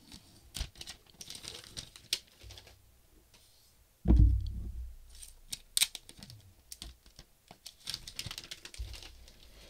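Plastic shrink-wrap being torn and peeled off cardboard phone boxes: light crinkling and small clicks. A heavier thump comes about four seconds in as a box is handled on the table.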